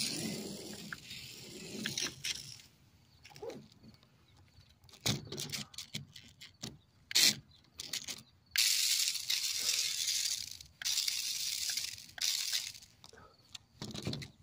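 Adventure Force toy RC stunt car running in short bursts, its wheels and plastic body rattling on the trampoline mat, with scattered clicks and knocks as it is handled.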